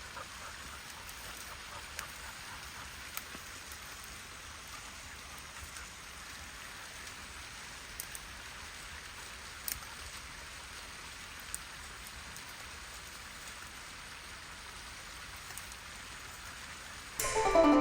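Overflow water from a full pond spilling and splashing down a small creek waterfall, a steady hiss with a few brief ticks. Plucked-string music starts near the end.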